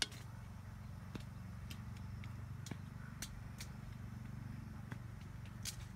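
Faint steady low rumble with a few light, scattered clicks.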